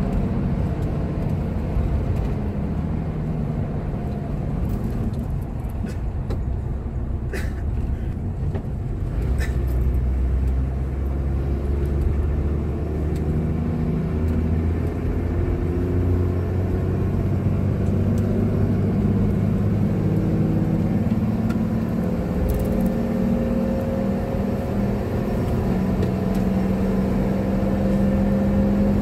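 Toyota Coaster minibus engine and road noise heard from inside the cabin while driving, a steady rumble whose engine note shifts with speed and climbs near the end. A couple of faint clicks come about seven and nine seconds in.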